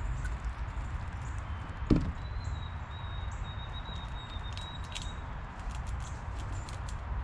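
A single knock about two seconds in as a gray squirrel leaps off the feeder bowl, over a steady hiss of rain with scattered small ticks of drips. A thin, steady high whistle follows for about three seconds.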